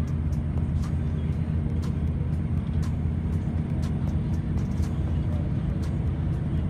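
Steady low engine hum and road noise heard from inside a moving bus, with frequent light rattling clicks.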